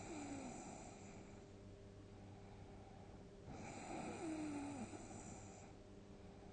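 A sleeping person snoring: two snores, a short one at the start and a longer, louder one about three and a half seconds in. Each opens with a falling, whistling tone.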